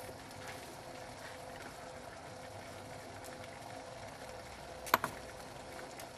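Water at a rolling boil in a metal cup on a Swiss Ranger Volcano Stove, over a burning Esbit-and-alcohol flame: steady bubbling with faint ticks. A single sharp click comes about five seconds in.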